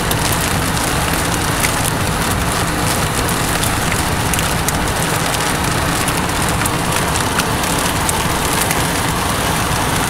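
Rain falling on a car's roof and windshield: a steady hiss dotted with many sharp drop ticks, over a low, steady vehicle rumble.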